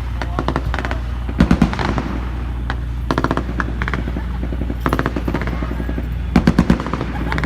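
Five short bursts of rapid machine-gun fire, each about half a second of quick cracks, the second and last bursts the loudest. A steady low hum runs underneath.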